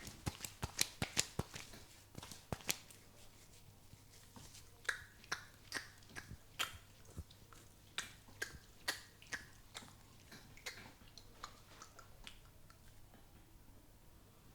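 A quick run of sharp snapping clicks from a barber's hands during a head massage. They come fast and loud for the first few seconds, then slower and fainter, and die away a couple of seconds before the end.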